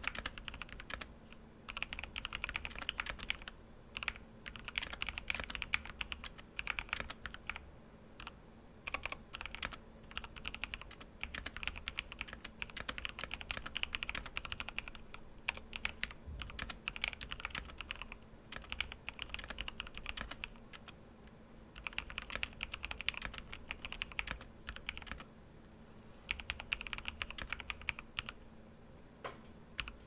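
Typing on a Drevo Gramr 84 mechanical keyboard fitted with linear Kailh Box Dark Yellow switches lubricated with a mix of Permatex and Steren lim-lub: keys clacking in quick runs of strokes with short pauses between them.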